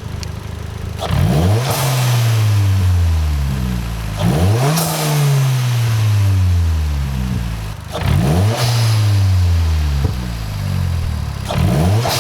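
Turbocharged Mitsubishi Colt CZT engine revved sharply four times, about every three and a half seconds, the revs falling away slowly after each one. At the top of each rev, as the throttle shuts, the blow-off valve with a homemade nozzle fitted vents with a hiss.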